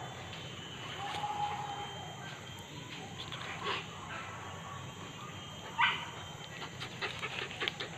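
Leashed hunting dog whining, with short sharp barks, the loudest about six seconds in; a patter of rustling clicks near the end.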